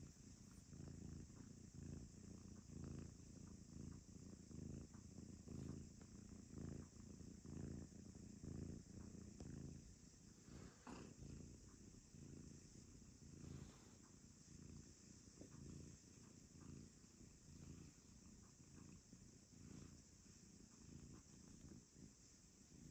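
Domestic tabby cat purring faintly while being stroked, the purr swelling and fading with each breath about once a second.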